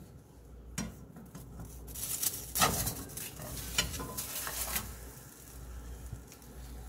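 Plastic spatula scraping under and pushing a fried egg across a Copper Chef Black Diamond nonstick fry pan, with light clicks of the spatula on the pan, busiest in the middle, over faint sizzling. The egg does not stick but has to be pushed rather than gliding freely.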